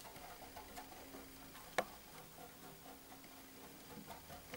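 Cat exercise wheel turning under a walking Bengal cat: faint, irregular soft ticking over a low steady hum, with one sharp click a little under two seconds in.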